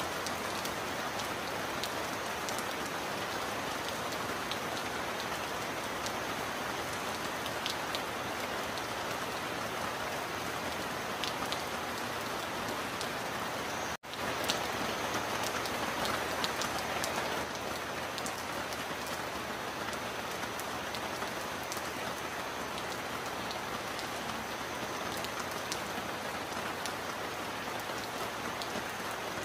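Heavy rain falling steadily, a dense hiss with individual drops ticking through it. About halfway through, the sound cuts out for an instant and comes back slightly louder.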